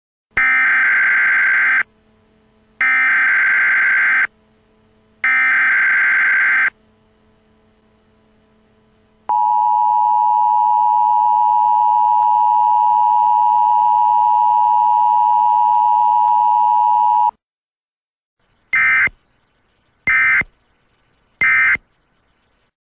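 Emergency Alert System broadcast signal: three digital SAME header bursts of about a second and a half each, then the steady two-tone attention signal held for about eight seconds, then three short data bursts near the end.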